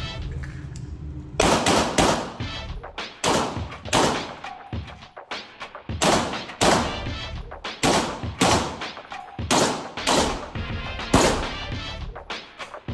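A long string of pistol shots, many fired in quick pairs, starting about a second and a half in, each shot echoing off the concrete walls of an indoor range.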